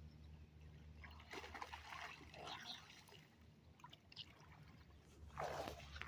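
Very faint splashing and trickling of lake water from swimmers, just above near silence.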